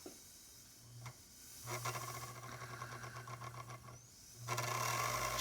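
Nipper sharpening machine running, its wheel grinding the steel face of a cuticle nipper held against it by hand as the face is recut, in a short touch and then two longer passes.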